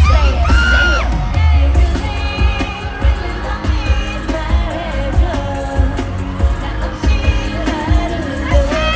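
Live K-pop performance: women's voices singing over a loud pop backing track with a heavy, pulsing bass beat.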